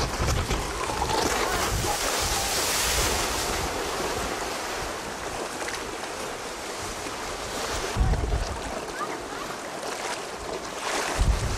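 Small waves washing onto a sandy beach, a steady hiss of surf, with wind gusting on the camcorder microphone in low buffeting bursts, strongest about eight seconds in and near the end.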